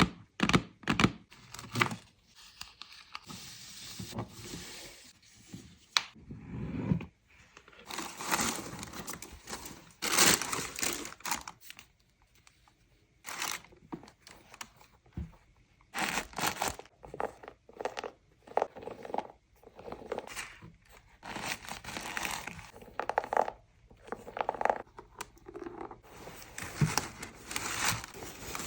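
A sneaker box being unpacked by hand: paper and packaging crinkling and tearing, with cardboard scraping and small knocks, in irregular bursts separated by short pauses.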